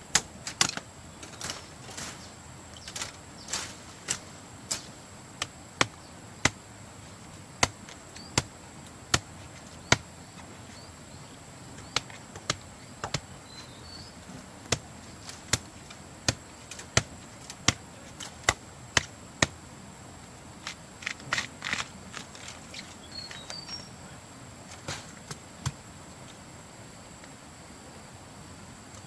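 Sharp, irregular knocks and snaps, about one or two a second and thicker for a moment a little past the middle, over a steady high insect drone.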